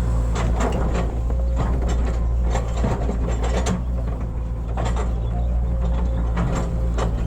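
Hitachi hydraulic excavator's diesel engine running steadily, with irregular metallic clicks and clanks from the working machine, about a dozen over a few seconds.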